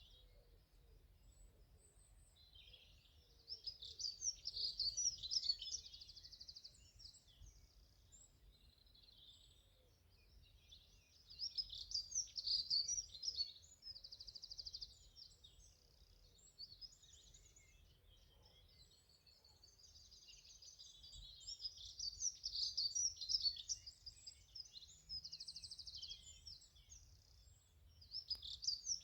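A songbird singing loud, high, rapid phrases with fast trills, four bursts of a few seconds each with short pauses between. A faint low rumble of wind or handling runs underneath.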